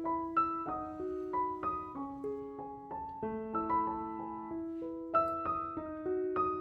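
Gentle solo piano music, single melody notes struck every few tenths of a second over held chords.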